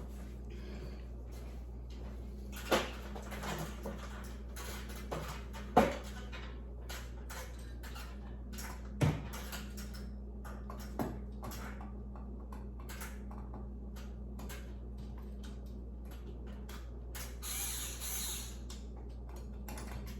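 Scattered small clicks and knocks of hand work fastening a ceiling light fixture to its mount, with a longer rustle near the end, over a steady low hum.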